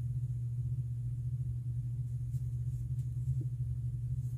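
Steady low background hum, with nothing else standing out.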